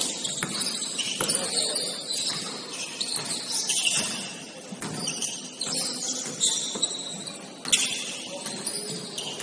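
Basketball shoes squeaking on a gym floor during play, short high squeaks again and again, with a ball bouncing now and then as sharp knocks, the loudest about three quarters of the way through.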